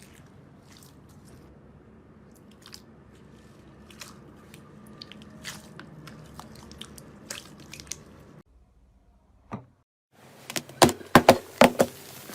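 Slime being squeezed and worked by hand, with soft crackles, squishes and little pops. About eight seconds in it breaks off into a short silence, then a run of sharper, louder clicks begins.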